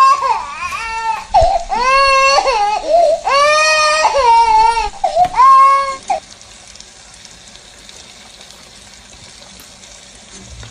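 A young child crying, in about five long, high wails over the first six seconds, then stopping; after that only a faint steady background hiss.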